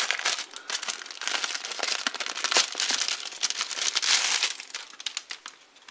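Thin clear plastic wrapping crinkling and crackling as hands work it off a tablet, dense rapid crackles that die down near the end.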